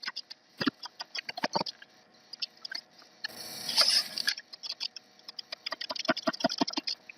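Typing on a computer keyboard: a run of quick, irregular keystroke clicks, with a brief rush of noise about halfway through.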